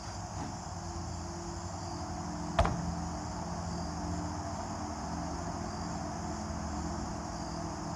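A single gunshot about two and a half seconds in, a shot fired while sighting in the gun. Crickets chirp steadily throughout.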